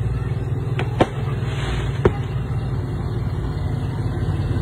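Steady low engine rumble of a slow-moving vehicle, heard from inside it, with a few short sharp pops about one and two seconds in.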